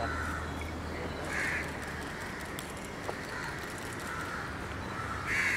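Birds calling twice, about a second and a half in and again near the end, over steady outdoor background noise.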